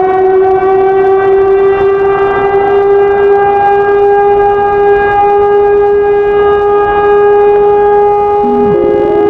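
Civil defense siren sounding one long, steady tone. Near the end, a second tone starts under it, moving in steps of pitch.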